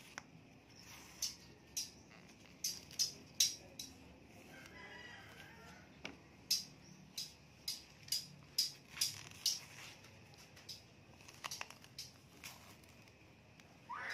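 Bananas being peeled by hand: a run of sharp, irregular clicks and snaps as the peel strips are pulled away. A faint short animal call is heard about five seconds in.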